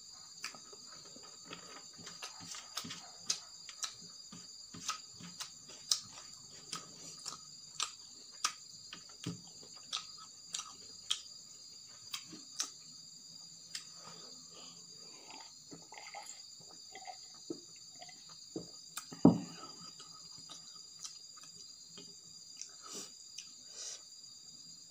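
Eating by hand from a stainless-steel plate: a run of sharp clicks and taps as fingers pick up rice and the food is chewed, with one louder knock about three-quarters of the way through. Crickets chirp steadily behind.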